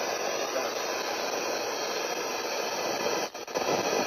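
Heavy rain pouring down, a steady rushing hiss that dips briefly about three seconds in.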